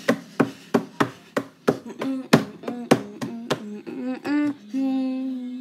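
Cartoon running footsteps: quick, even thuds about three a second. In the second half, pitched sounds that bend up and down join in between the thuds, and near the end they give way to one steady held tone.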